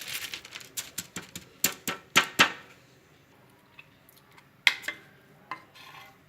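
Spoon knocking and scraping against a pot while thick syrup is scooped out and dropped: a quick run of clicks and knocks, the two loudest just after two seconds, then a few single taps, one sharp one near the five-second mark.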